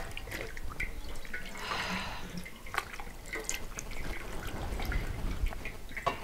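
Water splashing and dripping in a basin as something is washed by hand, in small irregular sloshes and drips.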